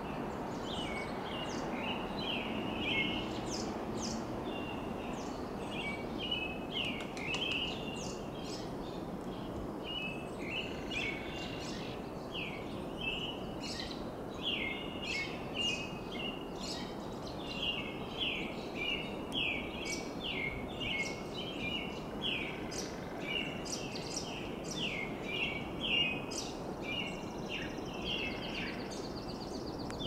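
American robin singing: an unbroken run of short, slurred whistled phrases with barely a pause between them, over a steady low background noise.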